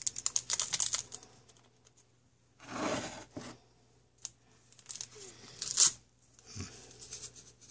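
Small paper packets of stevia sweetener being torn open: a quick run of rips and crinkles at first, then several more separate tearing rustles.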